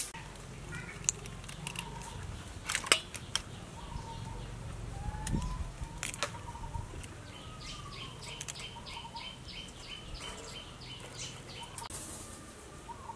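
Birds calling, with a run of even, quick chirps, about four a second, for a few seconds past the middle. A few sharp clicks come in the first half.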